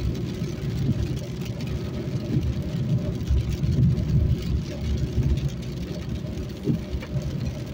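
Steady low rumble of a car driving on a wet road, with engine and tyre noise heard from inside the cabin.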